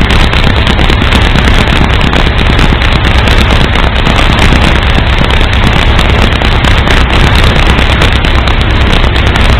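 Loud, rough, continuous vehicle noise with a crackling texture, as picked up by a truck's dashcam microphone, with no distinct impacts or tones.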